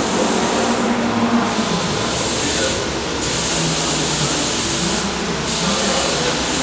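Twin-turbo V8 of a Sauber-Mercedes C11 Group C car running at low revs, a steady low hum that wavers a little in pitch, with voices around it.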